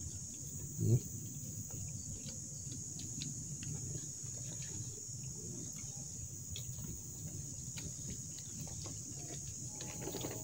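Steady high-pitched insect buzz, with soft rustling and crackling of banana leaves and a plastic food container being handled. A brief low thump comes about a second in.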